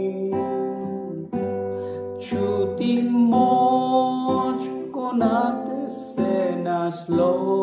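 A man singing a slow ballad in Slovenian, accompanying himself on a strummed acoustic guitar, with held, wavering notes at the ends of phrases.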